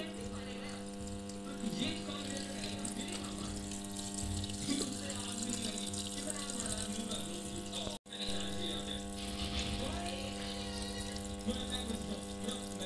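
Top-loading washing machine filling with water: running water over a steady hum, with a brief break about eight seconds in.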